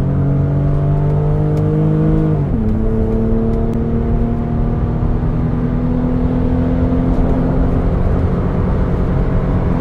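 Toyota Supra MK4's 2JZ straight-six engine pulling under acceleration. The revs climb, drop sharply at a gear change about two and a half seconds in, then rise slowly again.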